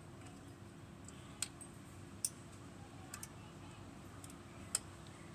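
Lock-picking tools (a pick and a tensioner) inside a lever lock, giving about five small, sharp metallic clicks spread out over a few seconds against a faint steady hum.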